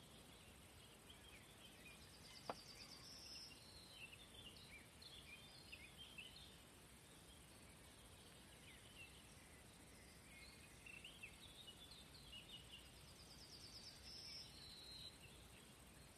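Faint songbird singing over quiet outdoor hiss: two spells of chirping song, each with a high trill, about eleven seconds apart. There is a single sharp click a couple of seconds in.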